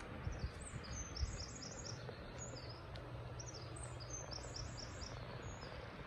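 A small songbird singing two quick runs of high repeated notes, each about a second long, a few seconds apart, with scattered single chirps between them. Under it is a steady rushing noise with a low rumble.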